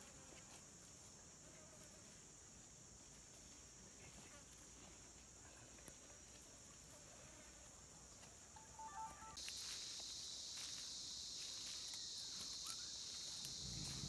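Insect chorus in forest, a steady high-pitched drone; about nine seconds in it switches abruptly to a louder, slightly lower chorus. Near the end, footsteps through undergrowth begin.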